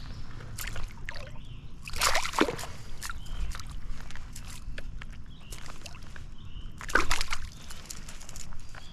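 Water splashing and sloshing, with two louder splashes about two seconds in and near the end.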